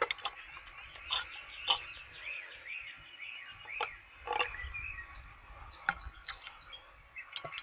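Turkey baster sucking brake fluid out of a master cylinder reservoir: the rubber bulb squelches and the fluid slurps in short squeaky gurgles, with a few sharp clicks of plastic in between.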